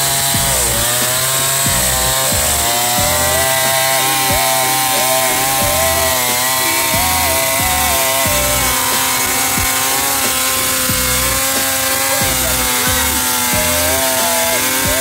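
Two-stroke chainsaw cutting lengthwise through a felled log under full load, its engine pitch dipping briefly a couple of times near the start and then holding steady.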